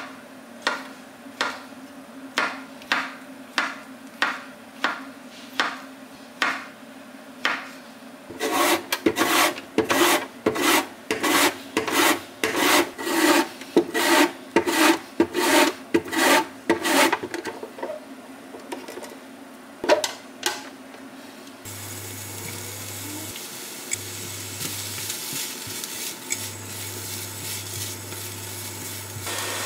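A chef's knife chops shiitake mushrooms on a wooden cutting board, a steady series of knocks a bit under two a second. About eight seconds in, a zucchini is rubbed back and forth over a julienne grater, a run of louder rasping strokes, and a few last strokes follow. About two-thirds of the way through, shredded vegetables start frying in a pan with a steady hiss and a low electric hum that cuts in and out.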